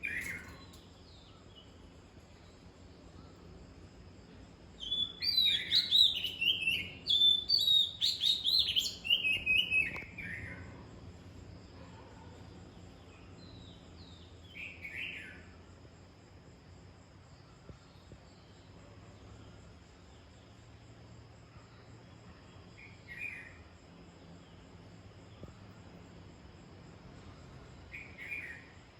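A bird singing: a rapid, loud run of short high chirping notes lasting about five seconds, followed by a few single short calls spaced several seconds apart.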